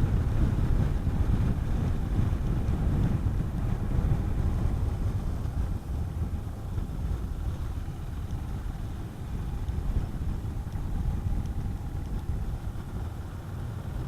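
Honda CB400SS single-cylinder motorcycle being ridden at road speed: engine running under a steady low rush of wind on the helmet microphone, easing slightly about six seconds in.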